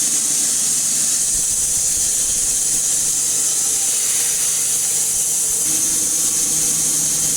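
Band sawmill running: a loud, steady high hiss over a low machine hum.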